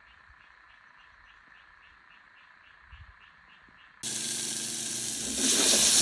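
Faint evening chorus of frogs by a flooded rice paddy: a soft call pulsing about three times a second over a steady trill. About four seconds in it cuts to the loud hiss of a saucepan of water boiling with garlic shoots in it, growing louder a second later.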